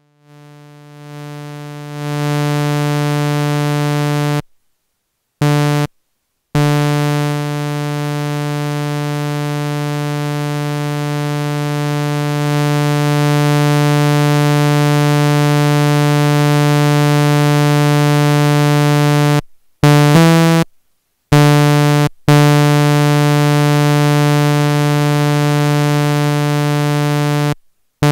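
Arturia MiniFreak synthesizer holding a single sustained low note that fades in over the first couple of seconds. The note cuts off abruptly several times and comes straight back as the key is released and pressed again, and it grows a little louder about halfway through.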